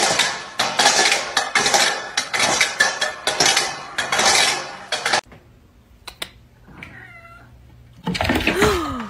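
A metal dog bowl scraped and shoved across brick paving by a puppy, in rapid rough strokes for about five seconds. Near the end a cat meows a couple of times, the last call falling in pitch.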